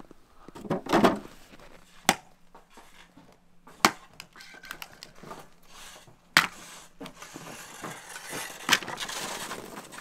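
Four sharp knocks about two seconds apart, with a rough, noisy haze between them.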